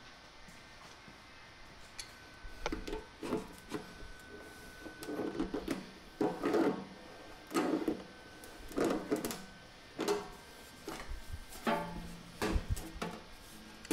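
Large slip-joint pliers working the drain strainer of a stainless steel sink tight: a series of irregular metal scrapes and clanks, about one a second. Plucked-string music comes in near the end.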